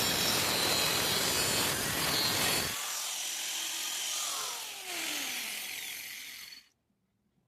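Electric grinder running against a steel drill bit. About two-thirds of the way through the first half the heavy low rumble drops away, leaving a high hiss with a whine that falls in pitch as the grinder slows, and the sound cuts off abruptly near the end.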